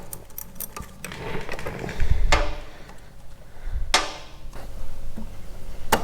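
Ratchet spanner and metal tools working the 10mm bolt on a motorcycle's gear selector linkage: a few light clicks, then two louder metallic knocks with a short ring, about two and four seconds in.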